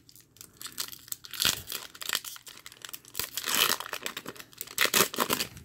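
A Pokémon TCG booster pack's foil wrapper crinkling and tearing as it is ripped open by hand, in uneven rustles that are loudest around the middle and near the end.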